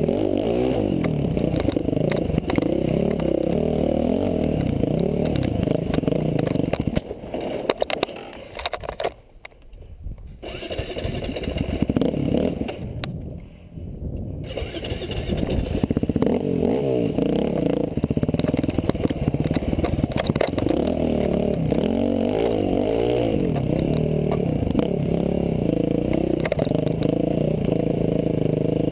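Dirt bike engine at race pace, its pitch rising and falling with throttle and gear changes, along with rattle from the rough trail. Twice it drops away sharply, about nine seconds in and again around fourteen seconds, before pulling hard again.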